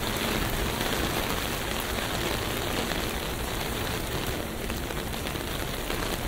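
Steady rainfall, an even hiss of rain falling with no other distinct sound standing out.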